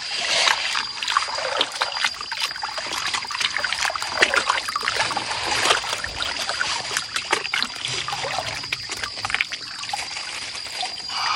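Water sloshing and splashing in a wide plastic gold pan as it is rocked and swirled in a shallow stream, with many small gritty clicks of sand and gravel washing across it.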